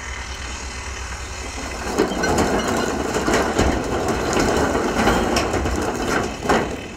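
Heavy diesel machinery running, then about two seconds in a wheel loader tips a bucket of blasted rock into a haul truck's steel dump bed: a long spell of rocks clattering and banging into the bed.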